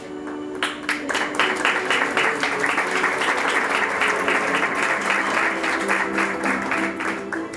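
A crowd applauding with many hands clapping. It starts about half a second in and fades just before the end, over soft background music with held notes.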